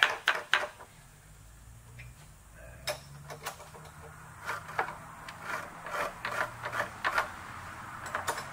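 Metal clicks and scrapes as an aluminium workpiece is handled and seated in a steel milling vise, over a low steady hum. A quick run of sharp clicks comes at the very start, and more irregular short clicks follow in the second half.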